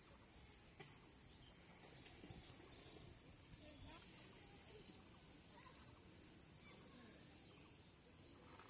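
Steady, high-pitched insect chorus, an even shrill buzz that does not change.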